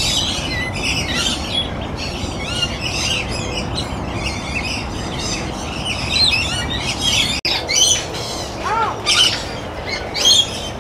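Many birds chirping and squawking at once: a dense, continuous flock chatter of high calls. It breaks off briefly about seven seconds in.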